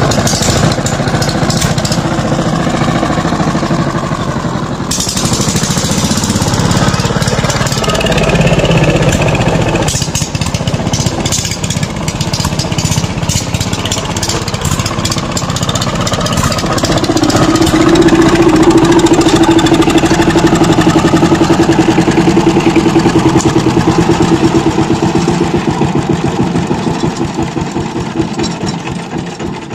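Power tiller's single-cylinder diesel engine running and chugging as the walking tractor is driven, with abrupt changes in the sound about five and ten seconds in. A steady hum rises over it partway through, and the engine sound dies away near the end.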